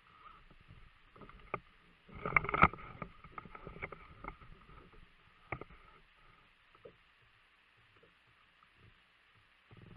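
Kayak being handled on the water: a dense burst of knocks and splashes about two seconds in, then scattered single knocks.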